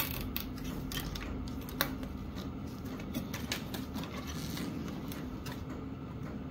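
Light, irregular clicks and ticks of hands working zip ties and a rubber hose guard, over a steady low hum.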